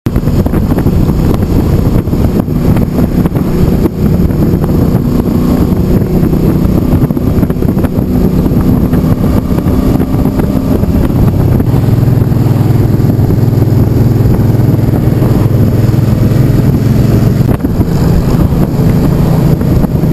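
Cruiser motorcycle engine running at road speed, heard from the rider's position with wind rushing over the microphone. The engine note drops to a lower, steadier tone about eleven seconds in and changes back near seventeen seconds.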